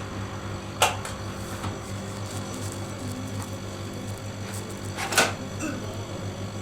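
Two sharp clicks about four seconds apart over a steady low hum.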